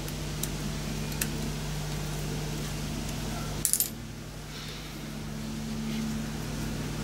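Small steel parts clinking: a couple of light ticks early on, then a quick cluster of bright metallic clinks just before the middle as a hex key and a small turned part are handled at a lathe chuck, over a steady low hum.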